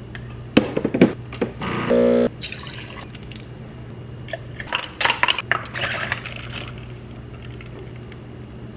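Iced coffee being made at an espresso machine: a few knocks and clacks in the first two seconds, then a short loud buzz. About five seconds in, milk glugs and splashes from a plastic gallon jug into a glass, over a steady low hum.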